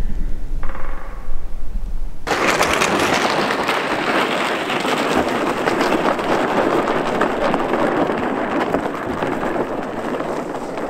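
A loud, dense crackling hiss that starts abruptly about two seconds in and holds steady, easing slightly near the end.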